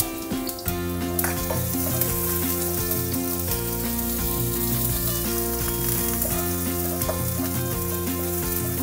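Sliced shallots sizzling in hot oil in a wok as they are sautéed and stirred with a spatula; the sizzle starts about a second in. Background music plays underneath.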